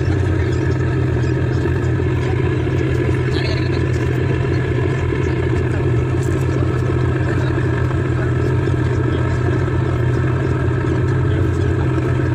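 A boat's engine running steadily, heard from on board as a constant low drone.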